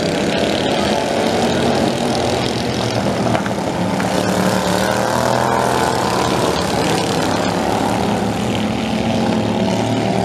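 A pack of racing lawn tractors running hard, several small engines overlapping, their pitches rising and falling.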